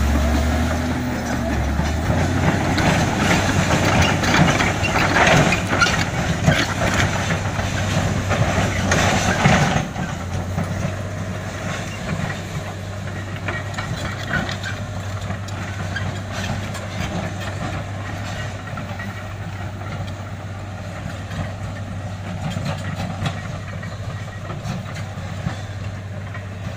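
Komatsu D85EX bulldozer's diesel engine working under load, with heavy clanking and scraping of tracks and blade against rock and earth. About ten seconds in the clatter stops suddenly, and the engine carries on as a steadier, quieter drone.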